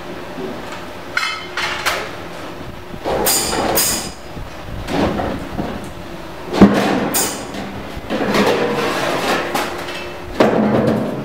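Press brake bending a large aluminum sheet: a series of metallic clanks and knocks, with the sheet rattling and ringing as it is handled, the sharpest clank about six and a half seconds in, over a steady machine hum.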